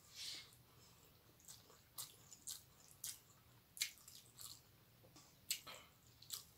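Wet chewing and mouth clicks of a person eating rice and dal by hand: short, irregular smacks, with the sharpest ones near the middle and about two-thirds of the way through.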